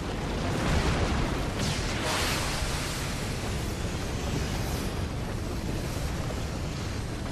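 Anime battle sound effects: a continuous loud rush of blast-like noise, with a couple of whooshes about two seconds in.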